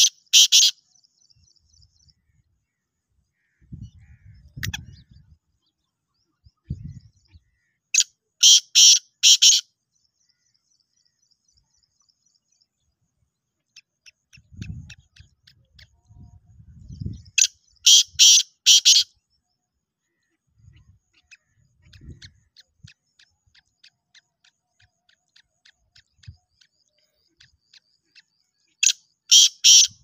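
Black francolin giving its loud, harsh call three times, about ten seconds apart, each call a quick run of several notes lasting about a second and a half. Faint fast high chatter and a few low rumbles come between the calls.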